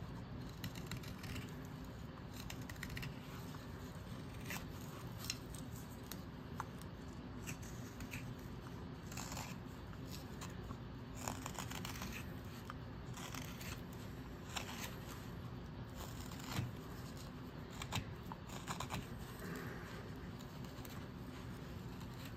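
Wood carving knife whittling a wooden blank, slicing off shavings in short, irregular scraping cuts.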